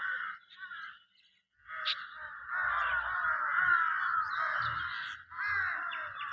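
A flock of crows cawing together, many harsh calls overlapping. The chorus drops out briefly about a second in, then resumes thickly.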